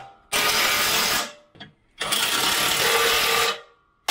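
Handheld power tool running fuel tank mounting bolts in: three loud bursts of about a second each, with short pauses between them.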